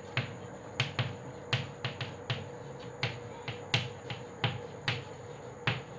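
Chalk writing on a chalkboard: a string of sharp, irregular taps and clicks as the chalk strikes and lifts off the board with each stroke of handwriting.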